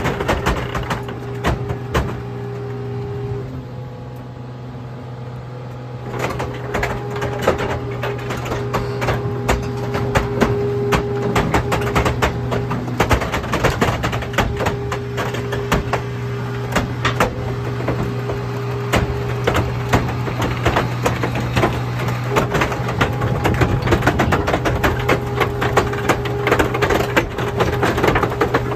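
Hydraulic car crusher running with a steady hum from its pump as its steel lid presses down on a load of truck beds and car K-frames, the scrap metal cracking, popping and crunching over and over. The crunching lets up for a couple of seconds a few seconds in, then resumes.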